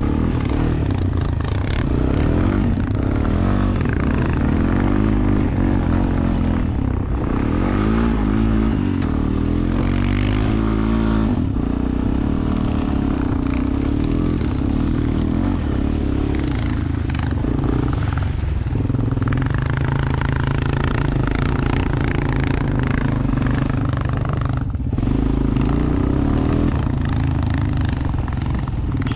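ATV engine running under throttle while riding over snow, its pitch rising and falling as the throttle opens and closes, with a brief drop in the engine note near the end.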